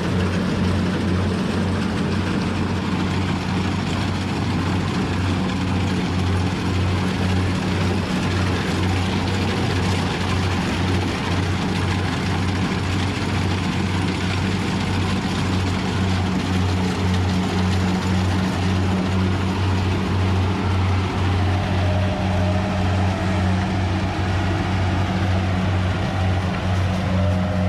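Rice harvester's engine and machinery running steadily, a low constant hum over a wide mechanical rattle and whir.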